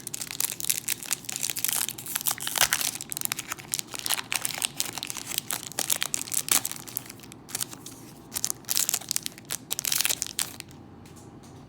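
Foil wrapper of a Pokémon booster pack crinkling and tearing as it is opened by hand, in a long run of irregular crackles that stops about a second before the end.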